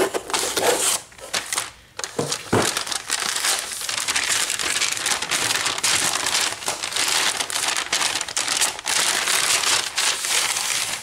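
Brown kraft packing paper crinkling and rustling as it is handled and unfolded. The crinkling runs almost without a break after about two seconds.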